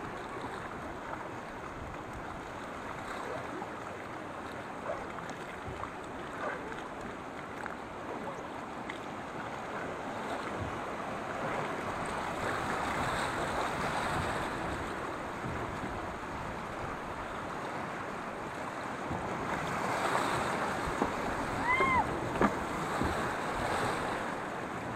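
River rapids rushing and splashing past the hull of a wooden river boat, a steady rush of white water that swells louder twice. About 22 seconds in, a brief squeak rises and falls, with a few sharp clicks.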